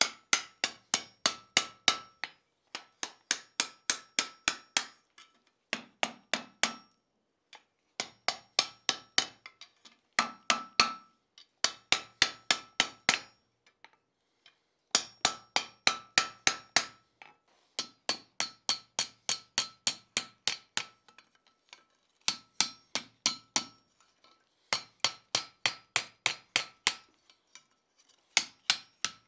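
Hand hammer striking red-hot flat bar stock on a steel anvil, in quick runs of about five blows a second with short pauses between, each blow ringing. The blows are curling the end of the bar into a scroll.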